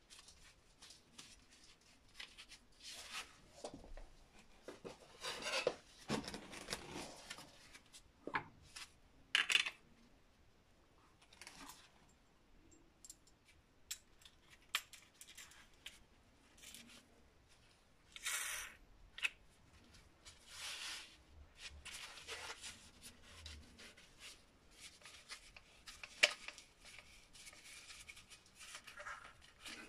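Handling sounds of a Metabo WEV 11-125 Quick angle grinder, switched off, as a diamond cutting disc and its guard are fitted: gloved hands rubbing, and short scrapes and clicks of plastic and metal parts. One sharp click stands out near the end.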